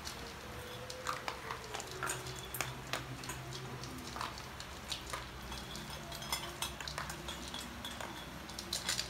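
Toy poodle puppies eating dry kibble together from one stainless-steel bowl: irregular light clinks and taps of food and muzzles against the metal bowl.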